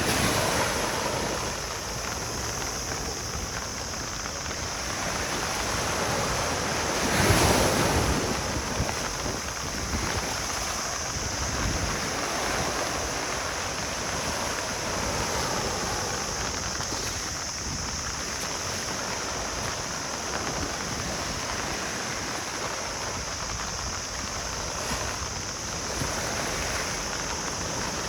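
Ocean waves washing onto a beach: a steady surf wash, with a bigger wave breaking about seven seconds in.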